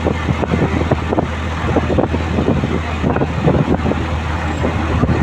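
Steady low rumble of road vehicle noise, with many small irregular crackles over it.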